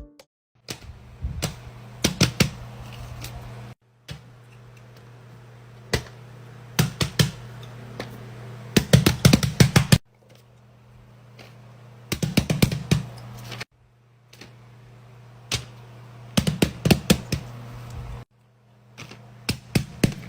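Fidget toys being clicked and snapped, in clusters of sharp rapid clicks over a steady low hum. The sound cuts off abruptly and restarts several times.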